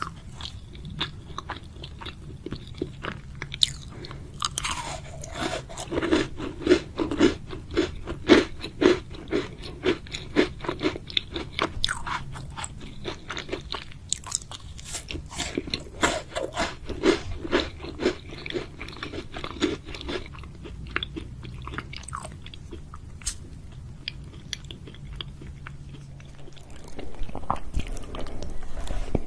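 Close-miked eating: a round chocolate-coated crispy biscuit bitten and chewed, with many sharp crunches, most dense through the first half, then sparser chewing. Near the end the background grows louder and steadier.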